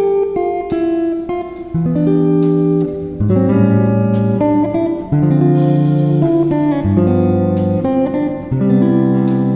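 Background music: an instrumental led by plucked guitar, with notes stepping over a bass line and regular sharp strums.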